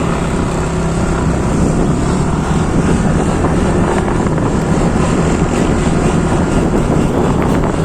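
Steady rush of wind on the microphone over the road and engine noise of a moving motorcycle.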